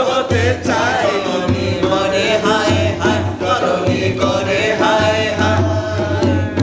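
A man singing a Bengali song in long, held notes, accompanied by a hand drum.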